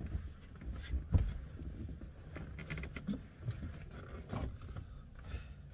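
Slow, uneven footsteps and light knocks of someone moving about a van, with a low rumble underneath; the firmest thump comes about a second in.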